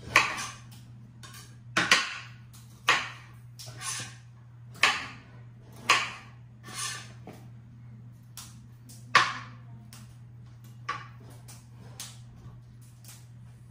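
Kitchen knife chopping broccoli on a cutting board: sharp knocks of the blade on the board about once a second, thinning out in the second half, over a steady low hum.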